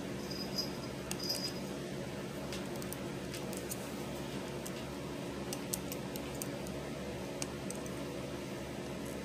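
Small scattered clicks and ticks of a plastic loom hook and rubber loom bands against a clear plastic Monster Tail loom as bands are looped over its pegs, with a couple of brief high squeaks in the first second or so. A steady low hum runs underneath.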